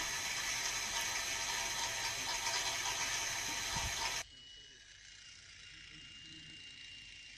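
Steady hiss with a high whine at a TOW anti-tank missile launcher seconds after firing, while the wire-guided missile is in flight. About four seconds in it cuts off abruptly to a much quieter background with a faint thin tone.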